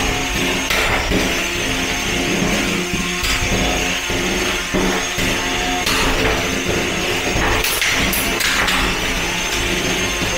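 Antweight combat robots fighting: the whine of a spinning drum weapon and the small drive motors, with sharp knocks as the robots strike each other.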